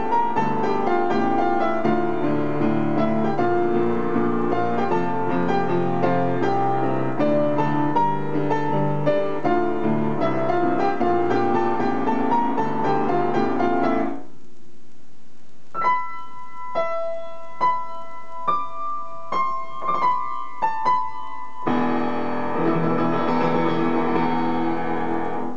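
Solo piano playing a dramatic arrangement of anime trailer background music. Dense low chords and fast figures stop abruptly about 14 seconds in, followed by a sparse passage of single high notes struck one at a time. Full chords return near the end.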